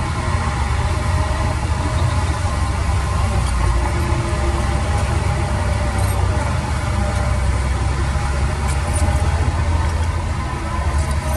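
Heavy diesel engine of earthmoving machinery running steadily with a deep low rumble.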